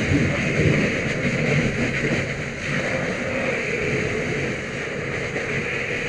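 Firefighter's hose-line nozzle open and flowing: a steady, loud rushing spray of water.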